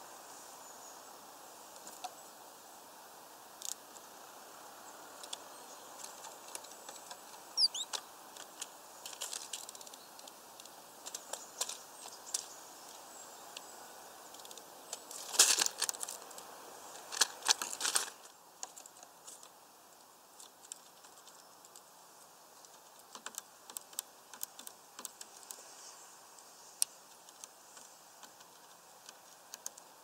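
Small birds, a Eurasian nuthatch and a great tit, pecking at peanuts through a mesh feeder bag: irregular sharp taps, with a burst of louder, rapid tapping about halfway through.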